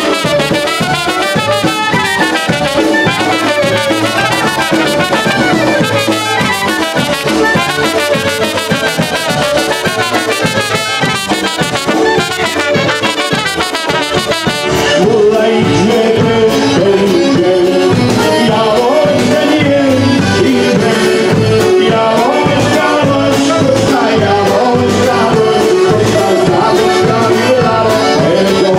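Live polka band playing: trumpet and two clarinets carry the melody over accordion, keyboard and rhythm section. About halfway through, the sound gets a little louder and duller at the top.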